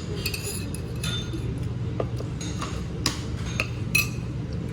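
Cutlery and dishes clinking during a meal: about half a dozen light, separate clinks with a brief ring, the sharpest about three and four seconds in, over a steady low background hum.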